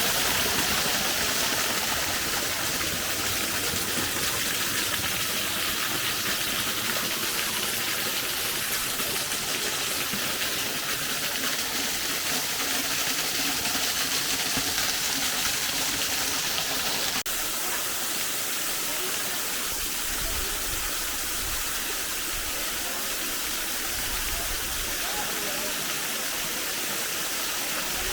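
Steady, loud rushing of fast-flowing mountain water, a full hiss with little low rumble.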